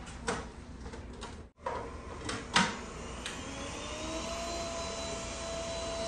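Yeedi Vac Max robot vacuum running across a hardwood floor: a steady motor hum and hiss, with a few sharp clicks, the loudest about two and a half seconds in. Around halfway through a whine rises and then holds steady.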